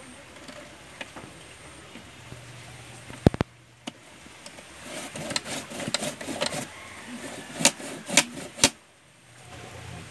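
Peeled cassava root being grated by hand on a homemade punched-sheet-metal grater nailed to a wooden board: rasping scrape strokes with sharp knocks and clicks, the loudest a double knock about a third of the way in and a run of three clicks near the end.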